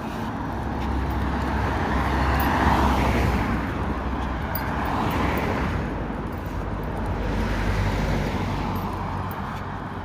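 Road traffic: about three cars passing one after another, tyre and engine noise swelling and fading with each pass.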